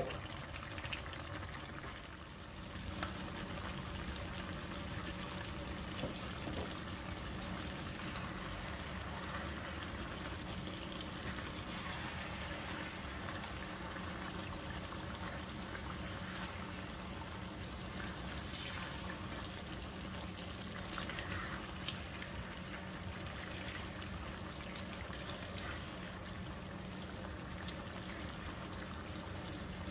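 Chicken hamonado with pineapple sauce bubbling steadily in an uncovered pan, the sauce reducing and thickening.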